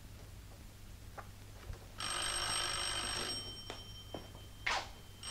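Desk telephone bell ringing: one ring of about a second and a half starting about two seconds in, and the next ring starting right at the end. A few light knocks and a short rustle come between the rings, over a low steady hum.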